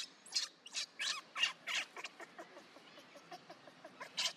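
Monkey squeaking calls: a quick run of short, sharp, high-pitched squeaks in the first two seconds, fainter ones after, and two loud squeaks again near the end.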